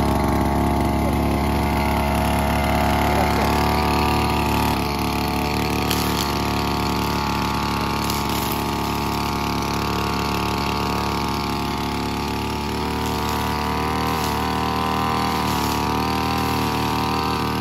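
Petrol brush cutter fitted with nylon trimmer line, its engine running steadily after being started, easing slightly in level about five seconds in.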